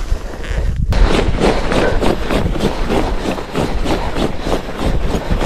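Quick, continuous crunching of boots moving over snow on the ice, starting about a second in, over a heavy rumble of wind on the microphone.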